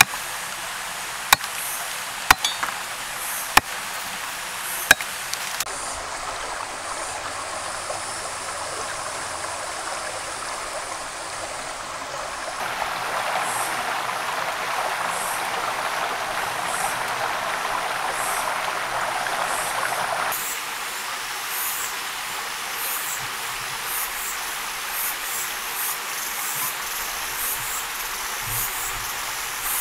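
A machete chopping through bamboo strips of a woven net, four sharp strokes in the first five seconds. Later a rocky forest stream rushing, louder for about eight seconds in the middle, with high repeated chirping through much of it.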